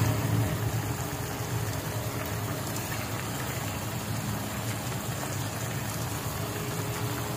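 Pan of green mussels boiling hard in water: a steady bubbling rumble.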